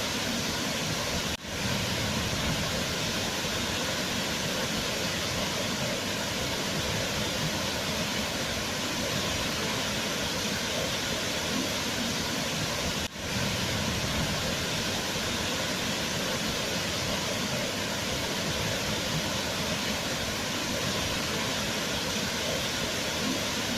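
Waterfall: a steady rushing of falling water, broken by a brief dip about a second in and another about thirteen seconds in.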